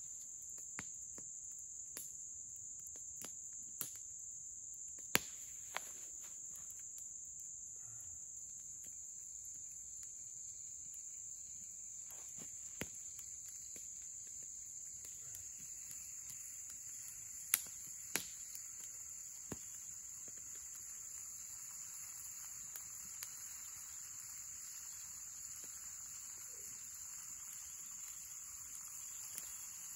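Steady, high-pitched chorus of insects in the woods, with sharp cracks and pops from a burning wood campfire at irregular intervals.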